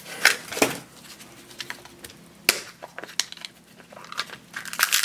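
Small plastic lunchbox-shaped toy case being handled and opened: scattered plastic clicks and taps, the sharpest about two and a half seconds in.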